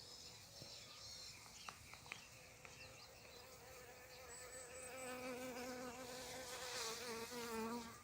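A flying insect buzzing with a wavering hum that grows louder from about five seconds in. A few faint bird chirps come in the first seconds.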